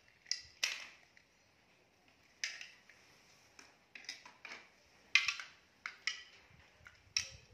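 Hard plastic toys clicking and clattering: toy sea animals knocked together in a plastic basin and against toy fishing rods. The clicks come irregularly, about a dozen of them, the loudest about halfway through.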